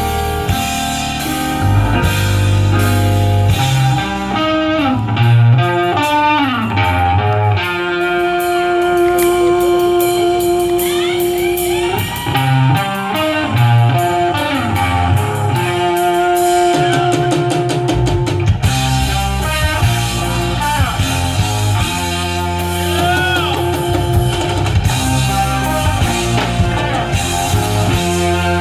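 Live band playing an instrumental passage: guitar lines with sliding, bent notes over bass and drum kit.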